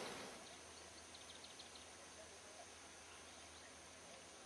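Near silence: faint outdoor ambience, with a short run of faint high chirps about a second in.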